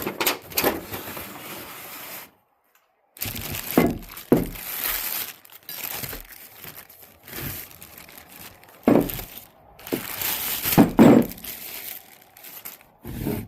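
Packaging being handled and torn open as a heavy part is unpacked from its box: crinkling and rustling wrap, with several heavier knocks and thumps, the loudest about 9 and 11 seconds in.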